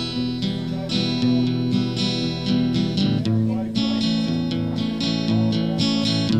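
Guitar music in the instrumental break of a slow country song, chords and melody notes ringing on with no singing.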